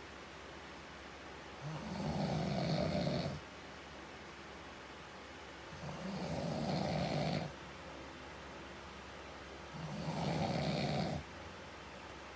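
A man snoring: three snores about four seconds apart, each lasting about a second and a half.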